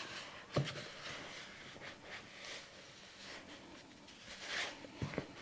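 A spurtle stirring and scraping softened cream cheese and ranch seasoning in a mixing bowl: faint soft scraping and squishing, with a short knock against the bowl about half a second in and two more near the end.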